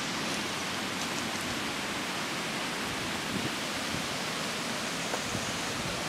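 Steady rushing noise of the River Afan in flood, an even wash of water sound with no breaks.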